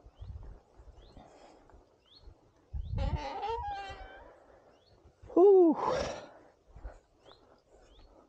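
Metal field gate hinges squealing as the gate is swung: a wavering squeal about three seconds in, then a louder, shorter squeal rising and falling in pitch, with a rattle as the gate swings to.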